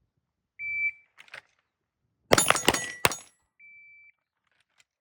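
A shot timer gives one high start beep, then about a second and a half later several shooters fire a tight volley of about five pistol shots. A second, quieter beep of the same pitch sounds about half a second after the last shot.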